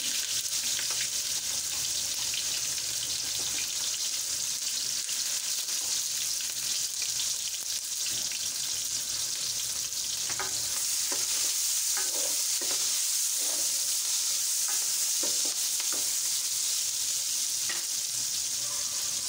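Sliced onions frying in hot oil in a pot: a steady sizzling hiss with scattered small crackles.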